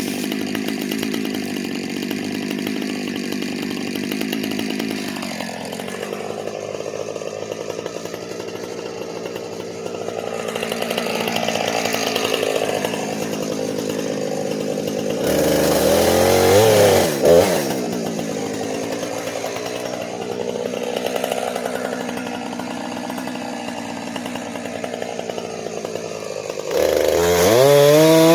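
Two-stroke chainsaw cutting dead ash, its engine pitch rising and falling as the chain bogs and frees in the wood. It revs louder about halfway through and again near the end.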